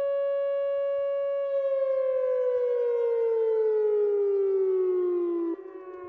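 Whelen WPS 2910 electronic outdoor warning siren sounding a steady tone that, about a second and a half in, starts falling steadily in pitch. Near the end it cuts sharply in volume, leaving a trailing echo of the falling tone and a fainter tone back at the starting pitch.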